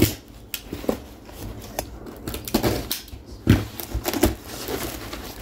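A cardboard shipping box being opened by hand: irregular rustling, tearing and crinkling of cardboard and packing, with scattered knocks.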